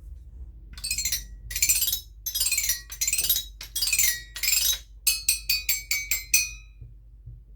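Bright metallic chiming: several jangling runs, then about six quick separate struck notes that ring on.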